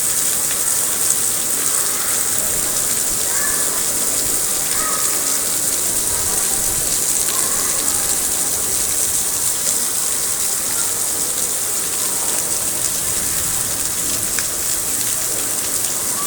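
Rain falling steadily and heavily, a dense even hiss with no let-up.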